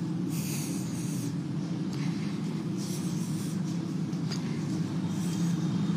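Steady low hum, with two brief soft hissy rustles, one about half a second in and another about three seconds in.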